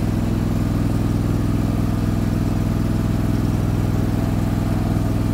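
Hustler riding lawn mower's engine running steadily just after starting, with the cutting blades not yet engaged.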